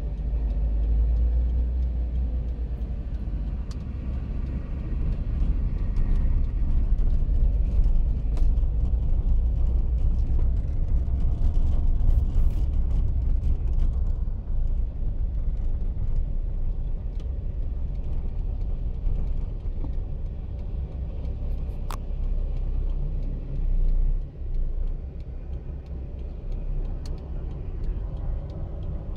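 Car driving slowly on town streets, heard from inside the cabin: a steady low engine and road rumble, with an occasional click.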